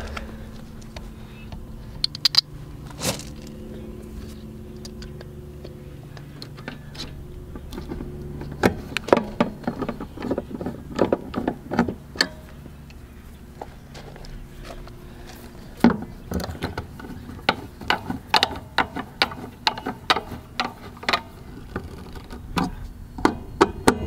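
Scattered small clicks, taps and rattles from a replacement control board for an Atwood/Dometic RV water heater being handled, fitted and screwed into the heater's metal compartment. A steady low hum runs underneath. The clicks come more often in the second half.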